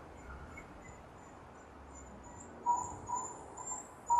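African painted dogs (African wild dogs) making high-pitched squeaking calls: faint, with two short squeaks a little after halfway, over a run of very high, thin chirps.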